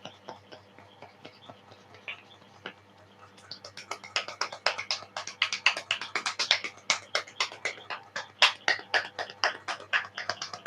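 Barber's hands striking the head during a head massage: soft scattered taps at first, then from about three and a half seconds in a quick run of sharper slaps and claps, several a second.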